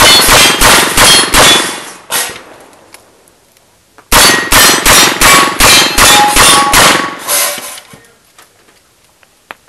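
Rapid strings of open-class competition revolver shots, about three a second, with steel targets ringing as they are hit. A first string ends about two seconds in; after a pause a second string of about ten shots runs from about four to seven and a half seconds in.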